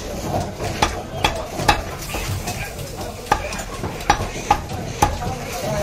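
Butcher's cleaver chopping goat meat on a wooden log chopping block: a string of sharp, irregular chops, about one or two a second, over steady background noise.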